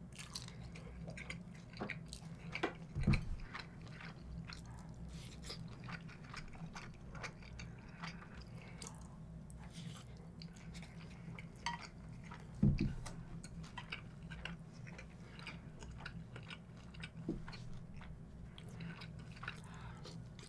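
Close-up chewing of a mouthful of fried rice, with many small wet mouth clicks and smacks. Two dull low thumps stand out, about three seconds in and again near the thirteen-second mark.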